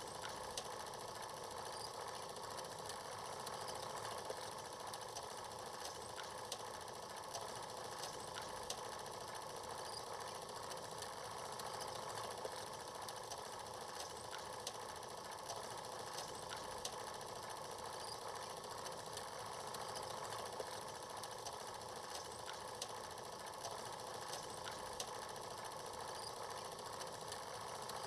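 Old film noise with no commentary or music: a steady whirring hiss with many faint scattered crackles and clicks.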